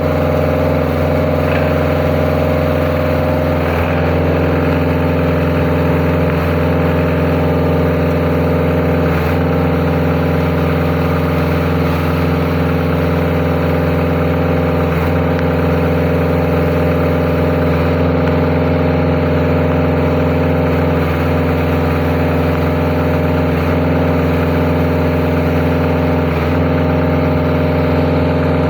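Concrete pumping machine's engine running steadily under load, with a faint knock about every five to six seconds.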